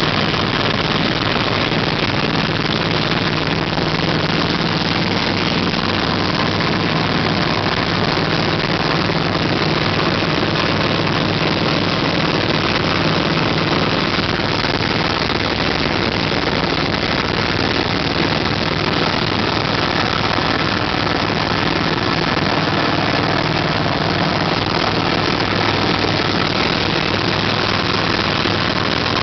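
Vehicle engine idling steadily, with an unchanging hum and a dense rattle-like noise throughout; the owner suspects a bad sound in it.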